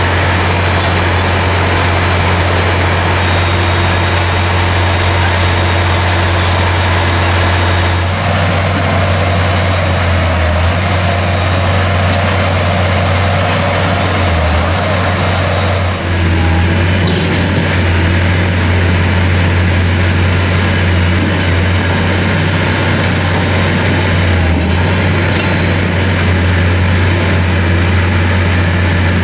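Liebherr R 960 Demolition crawler excavator's diesel engine running steadily at close range, a loud, even, deep drone.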